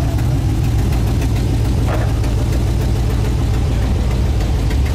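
Steady low rumble of an idling engine.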